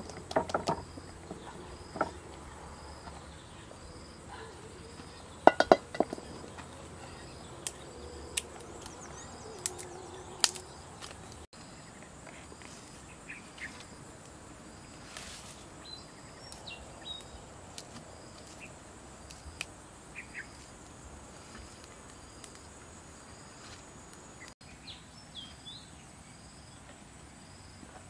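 Outdoor ambience of an insect chirping in a regular rhythm, a little more than one chirp a second, with a few short bird calls. In the first part, several sharp clicks and knocks from handling food and utensils stand out as the loudest sounds.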